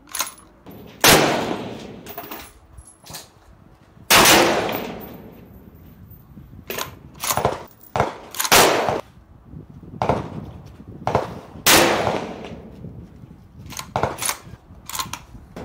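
Rifle shots at a covered shooting range: four loud cracks a few seconds apart, each trailing off in echo. Between them come shorter metallic clicks and clacks as a bolt-action rifle is cycled.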